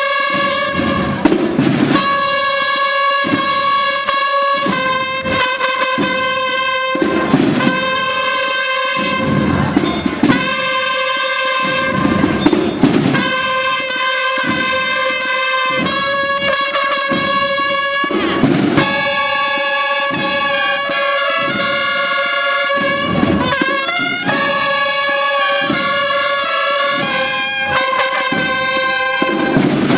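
A Holy Week procession band of brass instruments and drums playing a march: the brass holds long steady notes over repeated drum beats.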